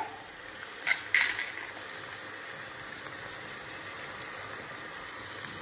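Diced onions and curry paste sizzling steadily in hot oil in a pan, with a couple of brief sharp sounds about a second in.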